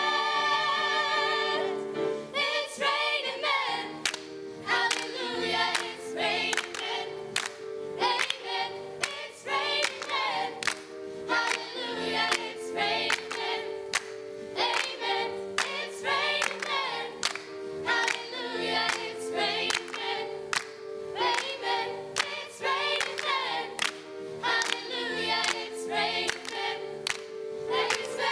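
Teenage girls' school choir singing in harmony, with hand claps keeping a steady beat. It opens on a held chord that breaks off about two seconds in, then moves into a rhythmic passage.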